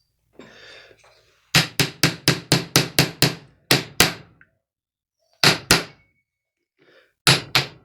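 Hammer blows on a hand impact driver, freeing a tight screw on a chainsaw's oil pump: a quick run of about eight blows, then a few pairs of blows with short pauses between them.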